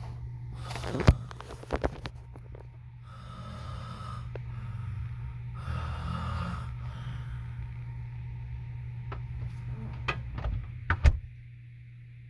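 Snoring: two long, noisy breaths in the middle, over a steady low hum. Sharp knocks and clicks near the start and near the end are louder than the snores.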